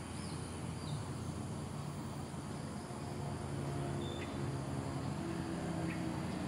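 Motorcycle engine running some way off, its hum growing slowly louder as it approaches. A few short high chirps sound over it.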